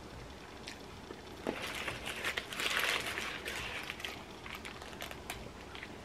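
Paper burger wrapper crinkling and rustling as it is handled, loudest about two to three seconds in.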